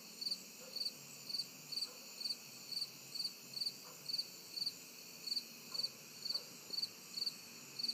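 A cricket chirping steadily, a little over two short chirps a second, over a continuous high trilling of other night insects.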